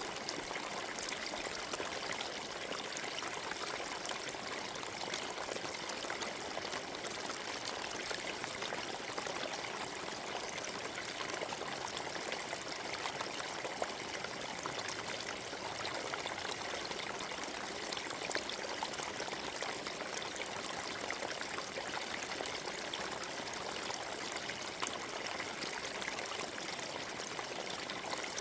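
A small forest stream running over stones: a steady rush of water with many small splashes and trickles, unchanging throughout.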